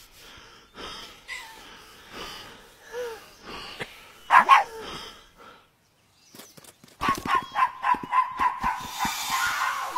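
Cartoon soundtrack with a dog's short yelping calls repeated about twice a second and a loud burst about four seconds in. From about seven seconds there is a fast run of knocks under a steady held tone.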